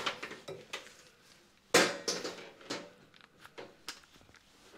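Clatter of hard objects being handled: a string of sharp knocks and clinks, the loudest a little under two seconds in.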